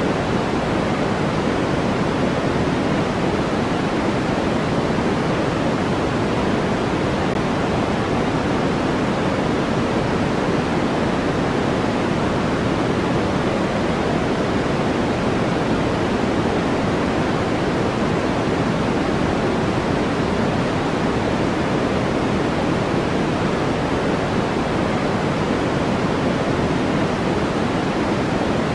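Steady, unchanging white noise: an even rushing hiss with no pattern or events, fuller in the low middle than in the treble, so it sounds softer and darker than a bright hiss.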